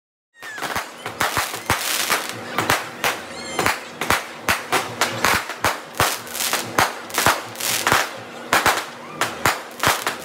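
Fireworks going off in a rapid string of sharp bangs and crackles, about three a second, starting just under half a second in.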